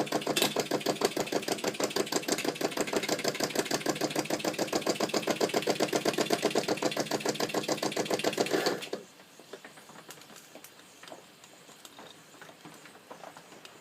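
Mamod SE1 toy steam engine's single oscillating cylinder running fast, an even rapid chuffing of about eight beats a second. It stops abruptly about nine seconds in, leaving only faint scattered ticks.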